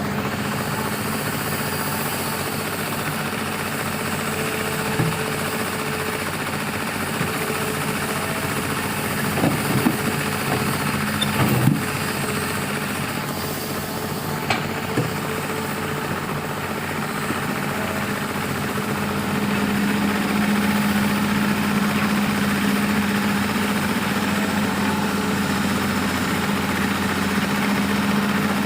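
Excavator's diesel engine running steadily, with a few short clanks in the middle. The engine note grows louder about two-thirds of the way through, as if it is working under load.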